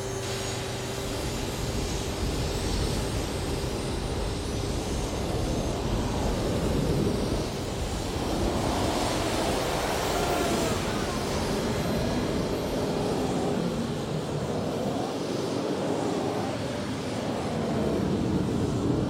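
Twin MiG-21 jet engines on a converted T-34 tank running at full throttle: a loud, steady rush of jet blast carrying injected water into a burning oil well. A faint steady tone at the start fades within a few seconds.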